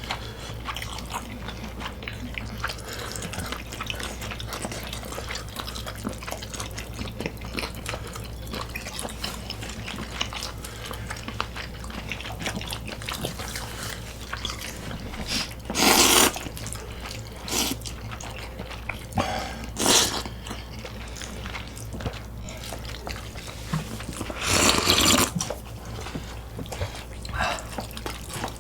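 Close-miked eating sounds: wet chewing and mouth smacking of spicy squid and fried chicken, with a few louder noisy bursts about halfway through and again near the end.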